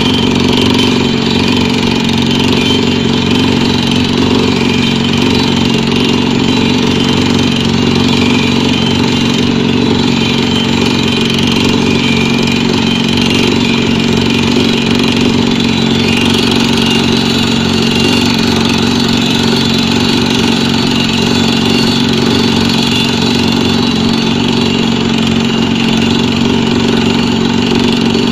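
Pneumatic drilling rig running steadily, a continuous loud engine-like hum with fast even pulsing underneath and no change in pace.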